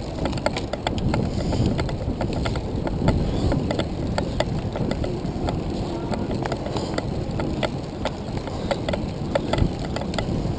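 Handcycle rolling along a paved street: wind buffeting the microphone and a steady road rumble, with frequent irregular clicks and rattles from the bike.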